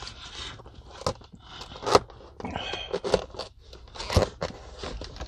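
Plastic takeout containers being handled: a clear plastic lid crinkling and clicking as it is pressed shut onto its tray, with a plastic fork scraping in a styrofoam box. Sharp clicks and crackles come roughly once a second.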